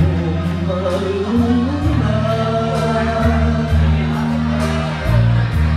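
A man singing a pop song into a microphone over band music with a steady beat and sustained bass notes.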